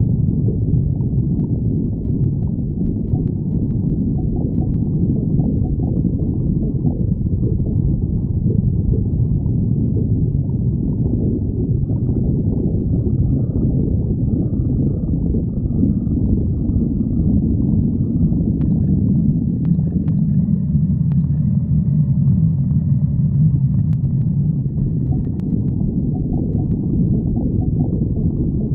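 Human stomach growling: a continuous low gurgling rumble from an empty, hungry gut.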